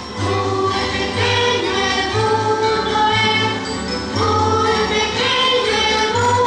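Music with choir-like singing over a regular bass beat.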